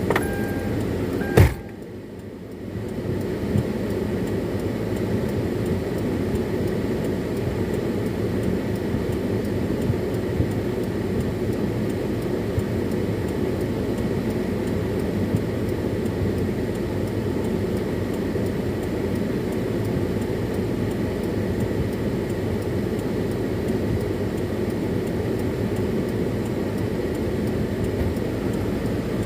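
Car running with a steady low engine and road rumble, broken by one sharp knock about a second and a half in, after which the rumble briefly drops before coming back.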